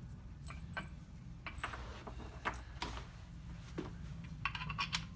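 Scattered light clicks and taps of small metal mounting hardware, the kit's bolts and nuts, being handled, over a steady low hum.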